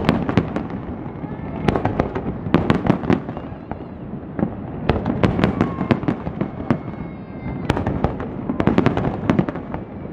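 Fireworks display: volleys of aerial shell bursts, many sharp bangs in quick succession, with brief lulls about four and seven seconds in.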